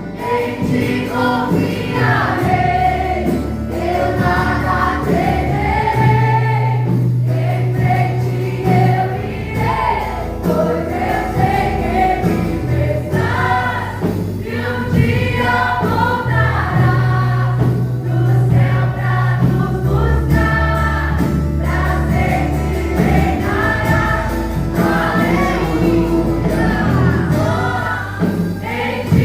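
Worship band playing with a choir singing a Christian worship song over a sustained bass line.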